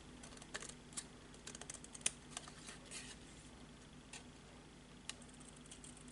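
Scissors trimming excess cardstock: faint, irregular snips and clicks, over a low steady hum.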